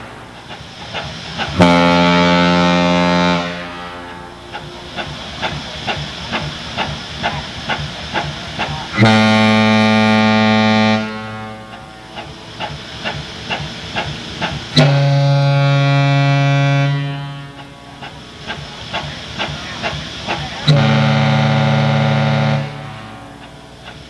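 Large Airchime ship horns (KM-series) blown in four blasts of about two seconds each, each a deep, steady multi-note tone that cuts off cleanly. Between the blasts a quieter rhythmic pulsing runs at about two beats a second.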